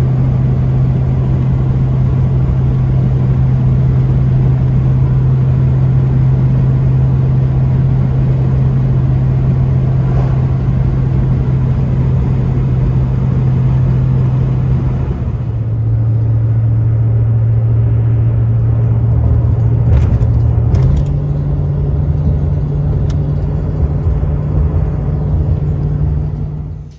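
A car driving, heard from inside the cabin: a loud, steady low hum from the engine and road. It drops in pitch about halfway through and rises again a few seconds later, with a few faint clicks near the end.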